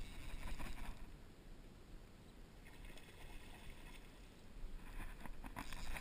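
Soft rushing of river water and wind on the microphone, swelling and easing. From about five seconds in, a run of sharp clicks and rustles from the fly rod and line being worked as a trout is hooked.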